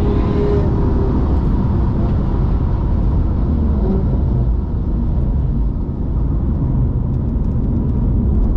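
BMW M4's twin-turbo straight-six running hard, its pitch shifting as it changes speed, with a steady wash of wet tyre and road noise.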